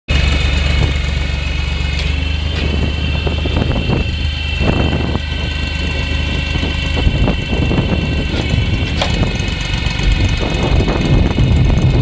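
Tractor engine running steadily, driving a log splitter's hydraulic pump through its PTO shaft, with a low hum, a steady high whine, and a few short knocks.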